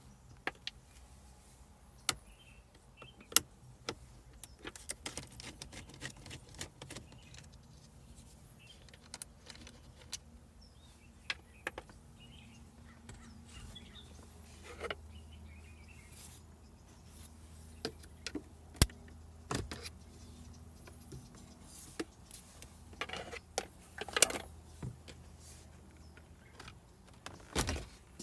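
Scattered clicks, taps and light rattles of plastic car interior trim and its wiring connectors being handled and pried loose, at irregular intervals, with a few sharper knocks. A faint steady low hum runs underneath.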